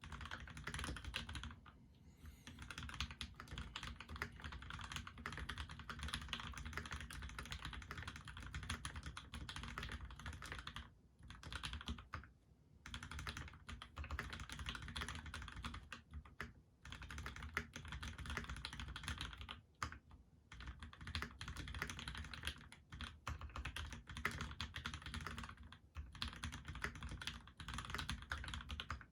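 Fast, continuous typing on a mechanical keyboard with lubed Gateron Ink Black linear switches on a brass plate, GMK keycaps and lubed stabilizers, with a few brief pauses.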